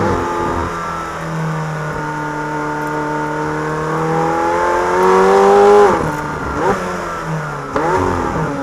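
McLaren Senna's twin-turbo V8 pulling hard, its pitch climbing for several seconds to the loudest point, then dropping sharply as it shifts. Two short rev flares follow, and the engine rises again near the end.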